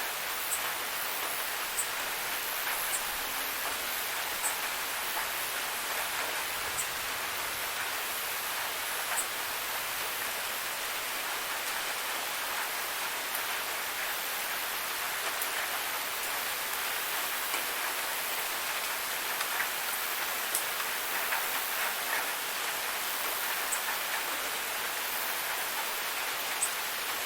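Waterfall's steady rush of falling water, with brief high ticks of splashing scattered through it.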